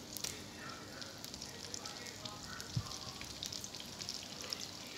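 Egg-dipped bread and sausage rolls frying in butter in a pan over medium heat: a steady light sizzle with small crackles, and one soft knock nearly three seconds in.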